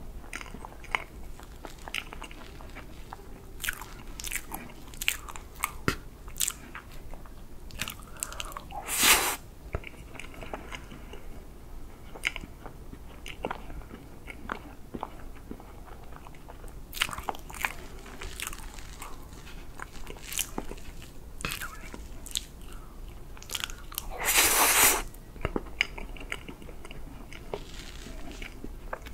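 Close-miked eating of whipped-cream chocolate cake: soft, wet chewing with many small mouth clicks. Two louder, longer noises break in, about nine seconds in and again about twenty-four seconds in.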